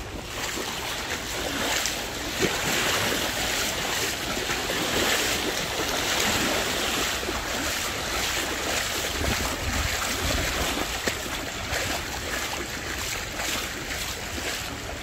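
Shallow seawater splashing and sloshing as a person wades through it, with wind buffeting the microphone.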